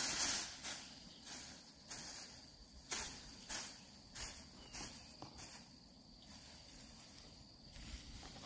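A steady high-pitched insect drone, typical of crickets, under short rustles and taps that come about once a second and thin out after the first half.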